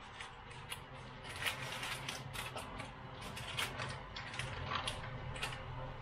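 Butter in its foil wrapper being handled and cut with a knife: irregular small crinkles and scrapes, over a steady low hum.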